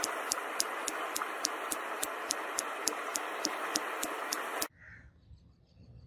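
Hammer blows on a red-hot steel bar lying on an anvil block, about three and a half sharp strikes a second over a steady hiss. Both cut off abruptly near the end.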